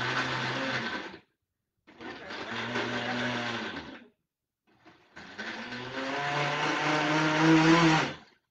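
Countertop blender blending a smoothie of apples, ice, milk and yogurt, run in three pulses: one stops about a second in, a second lasts about two seconds, and a third lasts about three seconds, getting louder before it cuts off near the end.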